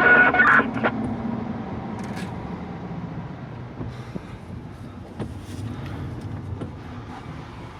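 Road vehicle driving, heard from inside the cabin: a steady low rumble of engine and road noise that gradually grows quieter.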